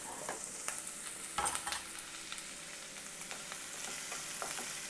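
Onion, capsicum and green chilli sizzling in hot coconut oil in a pan over a high flame, a steady hiss with a spoon scraping and clinking against the pan as the vegetables are stirred, loudest about a second and a half in.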